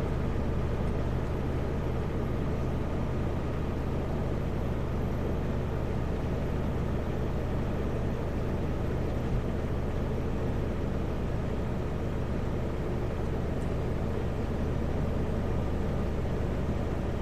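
Steady drone of a Kenworth W900L semi truck's diesel engine and road noise heard inside the cab while it drives, with one brief knock about nine seconds in.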